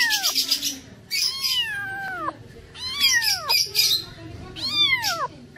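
Cat meowing over and over: four drawn-out meows, each falling in pitch, one about every second and a half.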